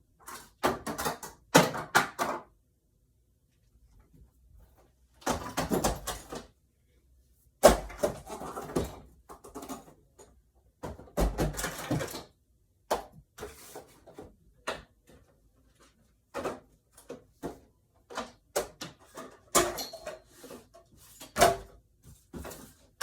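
Toy car packaging being handled and opened by hand: several bursts of rustling and crinkling, about a second long, with scattered clicks and knocks in between.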